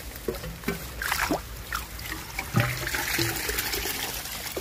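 Water trickling and splashing in shallow muddy water as a tube eel trap is handled and lifted out, with a few short knocks in the first second or so.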